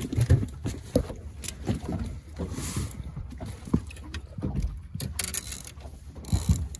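Scattered knocks and thumps on a small fishing boat's deck and hull over a low rumble of wind and water.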